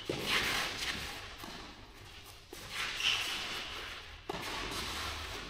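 Tennis rally: a few sharp racket-on-ball hits and bounces, spaced a second or two apart, echoing in a large indoor hall.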